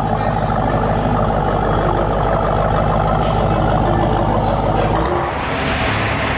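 A motor vehicle engine idling steadily. About five seconds in, the low rumble drops away and a hiss rises.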